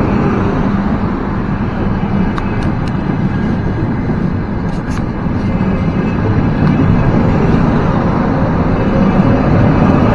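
Trenitalia Frecciarossa high-speed train rolling past along the platform: a steady rumble of wheels on rail, with a few light clicks, growing louder near the end.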